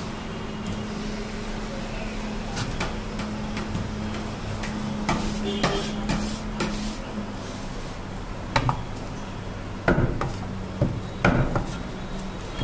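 Large cleaver-style knife chopping cobia into chunks on a round wooden block: irregular sharp chops, several close together in the second half. A steady low hum runs underneath.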